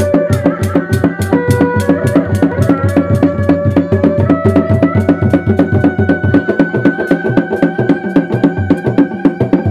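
Sundanese reak ensemble music: dogdog frame drums beating a fast, steady interlocking rhythm, with a held melody line above them that steps to a new pitch a few times.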